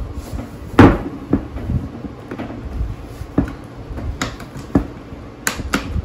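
Plastic trim and control pieces of a Ford F-150 steering wheel clicking and knocking as they are pushed and snapped back into place during reassembly. Several sharp clicks, the loudest about a second in and a quick pair near the end.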